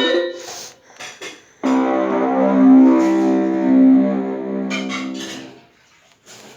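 Android notification tone: a brief blip, then a plucked-string-like chord that comes in about a second and a half in, rings for about four seconds and fades away.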